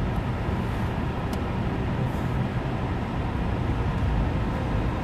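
Steady low rumble of a car with its engine running.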